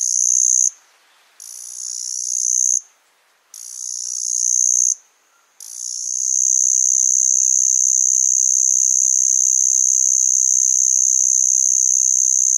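A single cicada buzzing with a high-pitched song. A buzz cuts off under a second in, then two more short buzzes follow, each swelling and stopping sharply. From about six seconds in comes a long, steady buzz.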